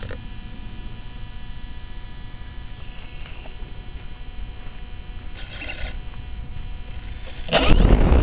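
A model airplane's onboard camera picks up a steady electrical hum with a few thin constant tones and low rumble. About seven and a half seconds in, the sound jumps suddenly to a loud rush with a low drone as the model's motor and propeller run up while the plane is still on the ground.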